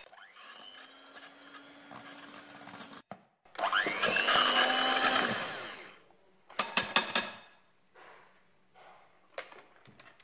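Electric hand mixer beating thick whipped cream in a glass bowl: it spins up and runs about three seconds, stops briefly, then runs louder for a couple of seconds and winds down. A burst of sharp clicks follows, with a few fainter ones near the end.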